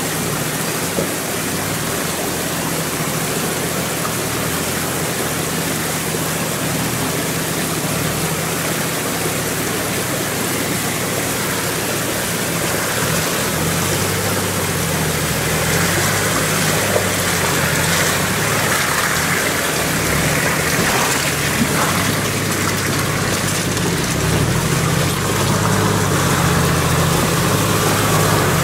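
Rushing water of a rocky mountain stream, with the low engine hum of off-road SUVs (a Nissan Patrol, then a Toyota Land Cruiser 80) crawling up through the streambed. The engine sound grows louder in the second half as the vehicles draw near.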